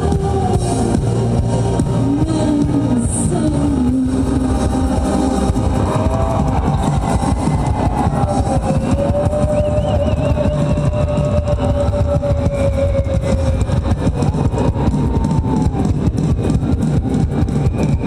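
Live band music with a dense, heavy low end and synth keyboards, with long held notes that slide in pitch above it. A fast, even beat comes through more strongly in the second half.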